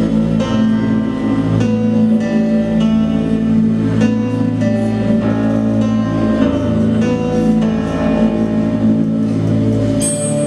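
Instrumental music with a steady beat, a sustained low accompaniment under plucked or strummed notes: the introduction to a song, before the singing comes in.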